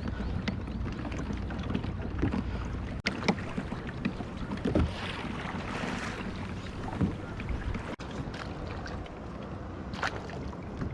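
Wind buffeting the microphone and water lapping against a fishing kayak's hull, with a few short knocks scattered through, the loudest a few seconds in and near the end.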